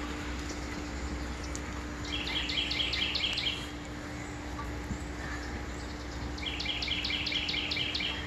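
A songbird singing a short, fast trill of repeated notes, twice, a few seconds apart, over a steady low hum.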